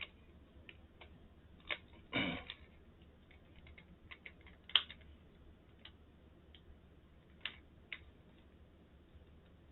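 Scattered light plastic clicks and taps from hands working on a laptop's case, with a short scrape about two seconds in and a sharper click near five seconds.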